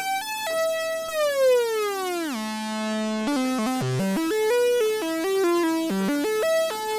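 Sequential Circuits Prophet-5 rev 2 analog synthesizer in unison mode, all voices stacked on one note, playing a quick single-line run of notes with a bright, buzzy tone. About a second in, the pitch glides steadily downward for over a second before the stepping notes resume.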